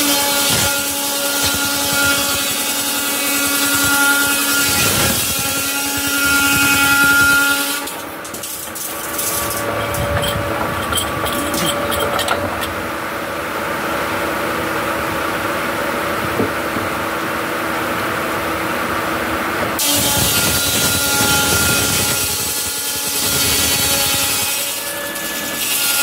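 Large circular rip saw cutting through timber: the blade runs with a steady whine under the loud noise of the cut. About eight seconds in, the cutting noise drops away for several seconds with some clatter while the saw runs on, then loud cutting resumes near the end.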